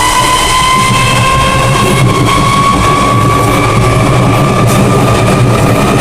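CPTM Série 7000 electric train pulling away, its traction motors growling loudly with a whine that rises slowly in pitch as the train gathers speed.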